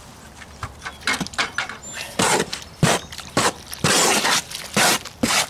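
Hoe mixing wet mortar in a wheelbarrow: a run of short scraping, sloshing strokes as sand, coloured cement and Portland are worked together with water, louder from about two seconds in.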